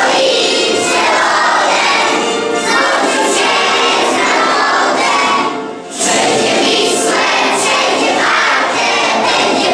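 A large choir of schoolchildren singing together, with a short break between phrases about six seconds in.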